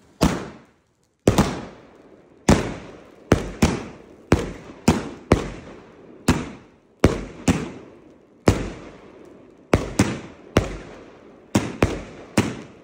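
Argento Leviathan 100-shot 30 mm firework cake firing: a run of about twenty sharp bangs at uneven spacing, roughly one and a half a second, each dying away in a short fading tail.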